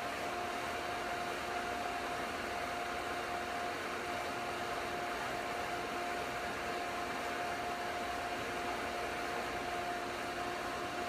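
Inground pool pump's motor running steadily with a constant whine over a rushing hiss, while it is being primed and draws the trapped air in from the main drain line a little at a time.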